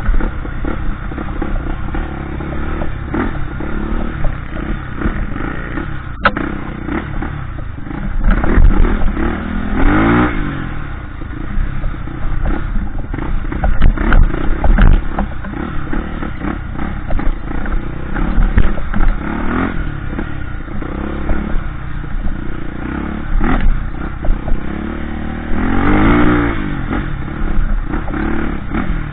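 Off-road trail motorcycle engines running hard, the revs rising and falling, with a strong rev swell about ten seconds in and again near the end, amid knocks and rattles.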